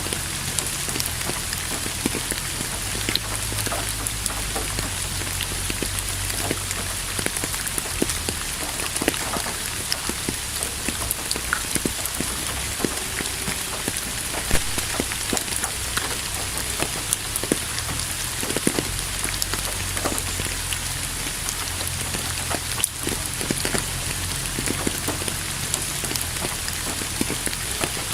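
Steady rain falling on a surface, an even hiss with many close, scattered drop hits.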